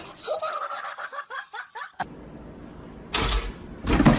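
A person laughing in short broken bursts, then two loud bumping noises about a second apart near the end.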